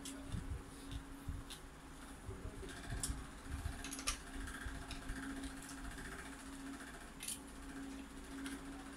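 Close-up eating sounds of boiled carabao meat eaten by hand: chewing, with a few sharp wet mouth smacks, over a steady low hum.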